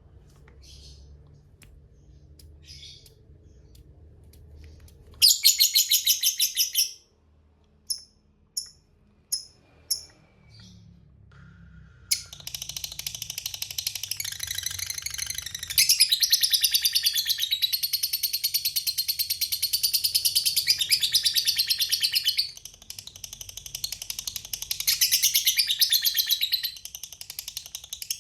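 Lovebird's long, rapid chattering trill (ngekek). A short loud burst comes about five seconds in, followed by three brief chirps. From about twelve seconds on the trill runs almost without break, loudest in the second half.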